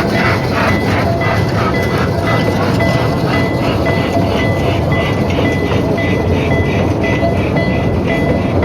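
Miniature park train running with a steady rumble and clatter, while a level-crossing alarm sounds a repeating two-pitch tone about twice a second.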